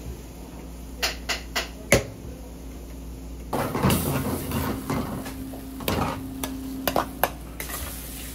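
A few sharp metal knocks in quick succession. Then a ladle stirring and scraping curry in a stainless steel pan on a gas stove, sizzling, with the ladle clinking against the pan now and then.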